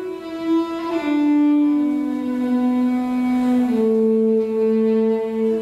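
Solo violin playing slow, long bowed notes, four in a row, each a step lower than the last.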